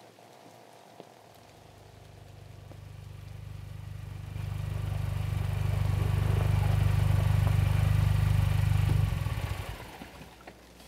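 A car pulling up: a low engine rumble that grows steadily louder, then drops away quickly about nine seconds in as the car stops.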